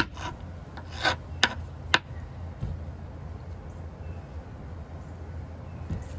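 A metal spoon scraping seeds and stringy pulp out of a halved acorn squash: about five short scrapes in the first two seconds, then only a low steady rumble in the background.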